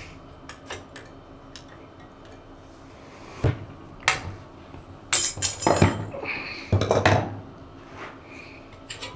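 Steel clinks and clanks as two crescent wrenches grip a short piece of steel sawmill band held in a vise and are twisted to shear it: a few sharp metal knocks, some with a short ring, in the middle of the stretch.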